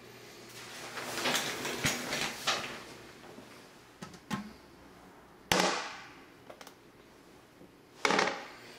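Plastic toilet lid being handled and raised: a stretch of rustling and scraping, then two sharp clunks, the louder one about halfway through.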